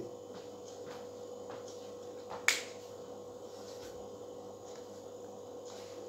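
A single sharp click about two and a half seconds in, over quiet room tone with a faint steady hum.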